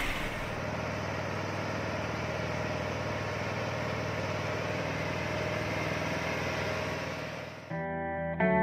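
Nissan Diesel TZA520 logging truck's 17-litre diesel engine running steadily as the loaded truck drives along. Near the end the engine sound cuts off and electric guitar music begins.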